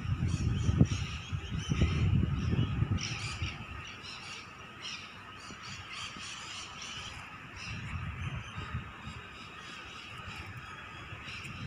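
Outdoor ambience: wind rumbling on the microphone for the first three seconds, then fading, with birds calling in the background.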